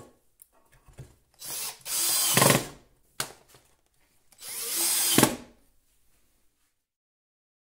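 Cordless drill running in two runs of about a second each, fixing a cut-down frying pan to an OSB wall, with a short blip before the first run and a click between them.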